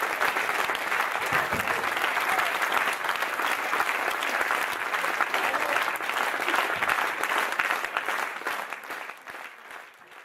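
Audience applauding, a dense mass of hand claps, fading out over the last two seconds or so.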